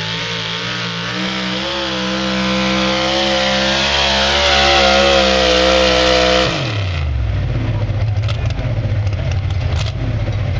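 A pulling pickup truck's engine runs at full throttle under heavy load as it drags the weight-transfer sled, its pitch wavering and edging upward. About six and a half seconds in, the throttle is cut and the revs fall quickly to a rough, lumpy idle.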